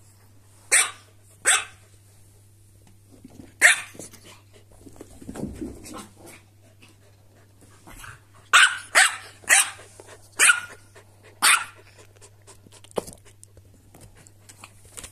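A corgi and a silky terrier squabbling over toys: short, sharp, high barks, three spaced out early, then a quick run of five about two thirds through and one more near the end, with a low growl in between.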